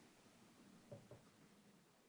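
Near silence: faint room tone fading out, with two soft taps about a second in, a quarter of a second apart.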